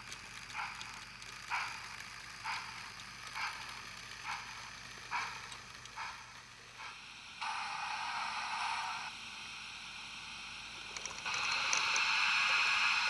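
A Train Tech model-railway sound chip plays steam-locomotive effects. Slow, even chuffs come about once a second for the first six seconds or so. Then comes a short burst of steam hiss about seven seconds in, and a longer, louder hiss from about eleven seconds on.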